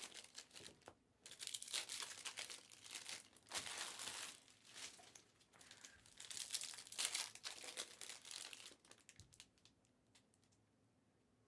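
Foil trading-card pack wrappers crinkling and tearing as basketball card packs are ripped open by hand, in uneven bursts that stop a couple of seconds before the end.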